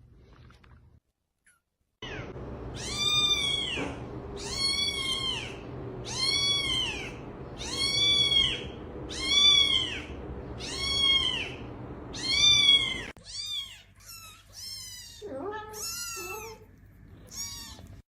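Domestic cat meowing over and over: seven long, evenly spaced meows, then a quicker run of shorter meows, some lower in pitch.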